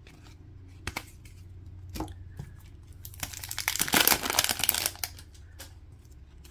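Foil hockey card pack wrapper crinkling as it is torn open and pulled apart, loudest from about three to five seconds in. A few light clicks earlier come from the cards being handled.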